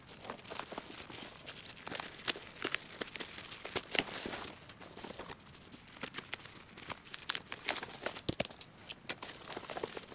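Plastic parcel wrap and bubble wrap crinkling and tearing as it is sliced open with a utility knife, with many irregular sharp crackles.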